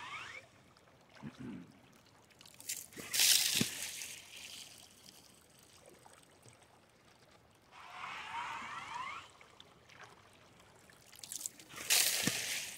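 Hand-pumped PVC suction gun sucking water and sediment from the riverbed: gurgling slurps as the plunger is drawn, with two louder sloshing gushes, about three seconds in and near the end.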